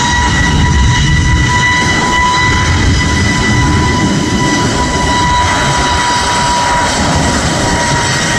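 CFM LEAP-1A turbofan engines of an Airbus A320neo running loud: a deep rumble under a steady whine of several even tones.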